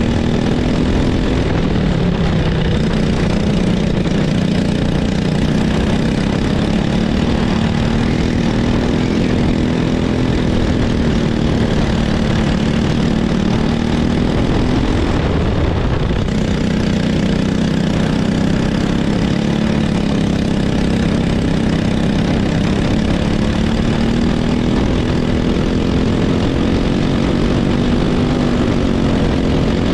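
Racing kart engine running under way at steady, high revs, its pitch drifting gently up and down and dipping briefly about halfway through before climbing back.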